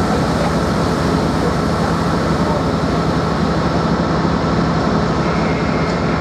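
Amtrak GE Genesis P42DC diesel locomotive sitting at the platform with its engine running, a loud, steady drone with a constant low hum.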